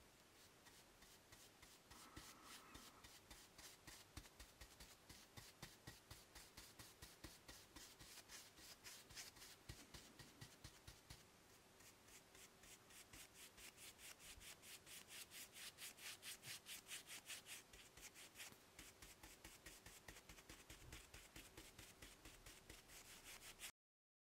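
Stiff-bristled brush scrubbing graphite wax into an ornate cast-iron base in quick, even back-and-forth strokes. The scrubbing cuts off abruptly just before the end.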